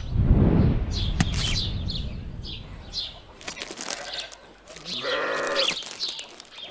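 Farm ambience: a single livestock bleat about five seconds in, over repeated short high bird chirps, with a low thud at the very start.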